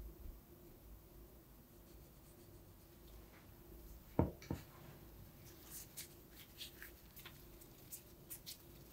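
Two sharp knocks about four seconds in, then light clicks and rubbing as nitrile-gloved hands handle and roll a cocoa-dusted chocolate truffle piece.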